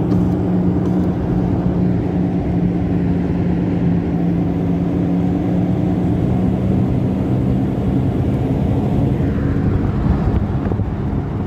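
Steady low hum and road noise inside a moving Toyota RAV4's cabin, from a damaged left rear wheel bearing.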